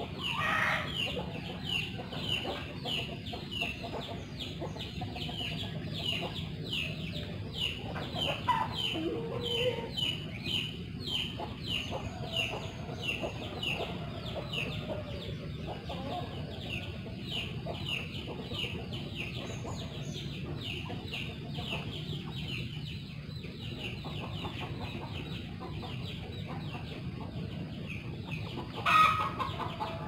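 Chickens calling and clucking, with louder falling calls just after the start and again near the end. Under them runs a high, short chirp repeated about twice a second.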